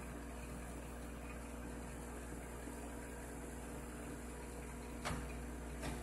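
Microwave oven running with a steady hum, and two popcorn kernels popping sharply inside it, the first about five seconds in and the second just before the end.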